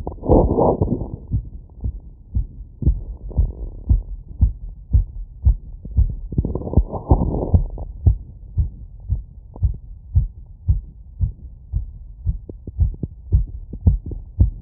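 Fast heartbeat heard through a wireless electronic stethoscope on the chest after running: a quick, even run of dull low thumps. Two longer rushing noises rise over the beats, in the first second or so and again from about six to eight seconds in.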